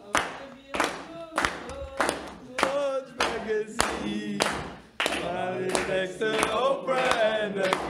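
A group of young men clapping in a steady rhythm, about three claps every two seconds, while their voices chant and sing along. About five seconds in, the voices grow louder and run together.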